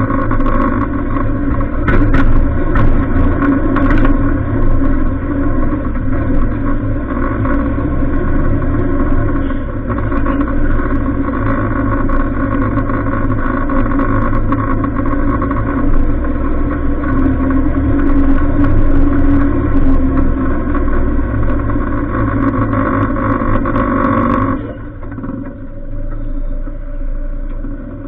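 Off-road vehicle's engine running steadily under load on a rough dirt trail, with two sharp knocks from the bumpy ride in the first few seconds. About three seconds before the end the engine note drops and quietens as the vehicle slows toward idle.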